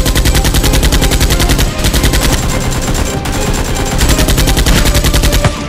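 Rapid automatic gunfire, a sound effect dubbed over toy Nerf blasters firing. The shots come in a fast, even stream, with two short breaks, and cut off abruptly near the end.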